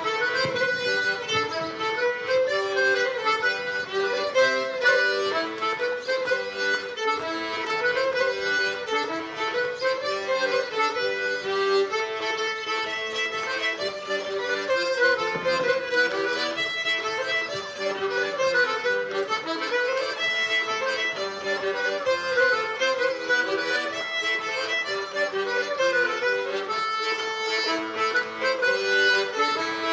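Fiddle and accordion playing a traditional Breton dance tune, the melody moving quickly and without pause.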